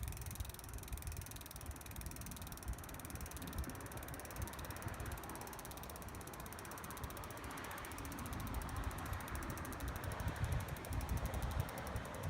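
A mechanism ticking rapidly and evenly, like a ratchet, speeding up toward the end.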